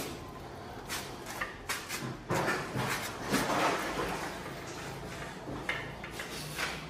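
A knife working the hide off a hanging calf carcass, with irregular scraping, tearing and rustling as the skin is cut and pulled from the body, busiest a couple of seconds in, with a few sharp clicks.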